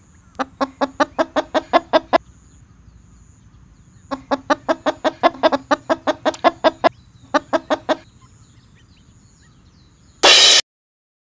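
Eastern spot-billed duck calling in three runs of short, rapid quacks, about seven a second. About ten seconds in comes a brief, loud burst of noise, then silence.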